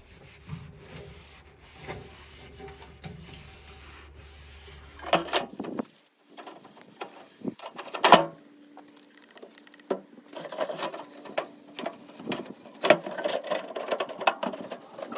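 Rubbing and handling noises on a metal toolbox, with scattered clicks and knocks; the loudest is a sharp knock about eight seconds in.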